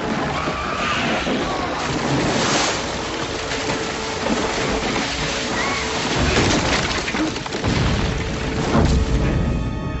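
Action-film soundtrack: dramatic music over continuous loud crashing and water splashing, with heavy low booms building in the last few seconds.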